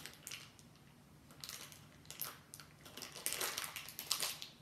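Small plastic packaging crinkling and rustling in hands as a blind-packed Doorables figure is unwrapped, in short irregular spells.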